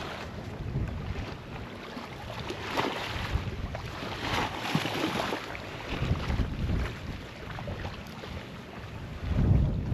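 Wind buffeting the microphone over the sound of water around a boat, in uneven gusts, with a stronger gust near the end.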